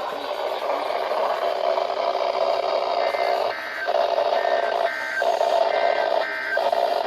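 NOAA Weather Radio broadcast received with a steady static hiss. From about three seconds in, three short bursts of the two-tone SAME digital data warble about a second and a half apart, the end-of-message code that closes the warning.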